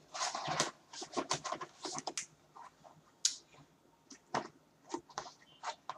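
Hands rummaging in a mailed package: short, irregular scratchy rustles of paper and packaging, busiest in the first second and then scattered.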